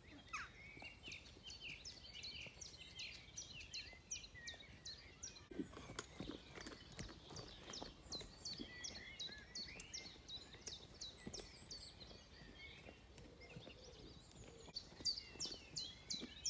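Songbirds singing in quick runs of high, falling chirps, fairly faint and continuous. A few dull thuds come about six seconds in.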